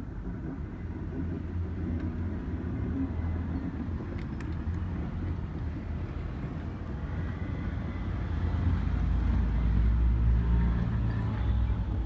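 Keikyu 1500 series electric train moving off along the depot tracks, a low rumble of running gear that builds to its loudest about nine to eleven seconds in, with a couple of faint clicks about four seconds in.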